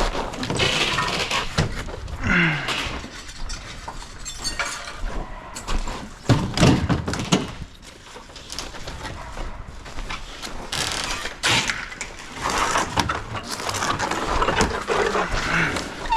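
Demolition work: irregular knocking, banging and crashes of material being broken and knocked apart, loudest in a burst of impacts about six to seven seconds in.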